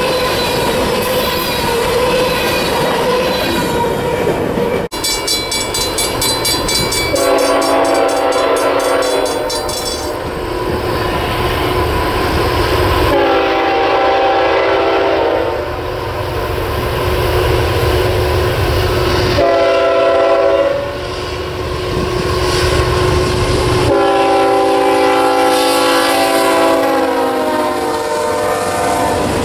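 Covered hopper cars of a freight train rolling past on steel wheels with a steady squeal. After a cut about five seconds in, an approaching freight locomotive's multi-chime air horn blows the grade-crossing signal: two long blasts, a short one and a final long one, and the locomotives come past close by near the end.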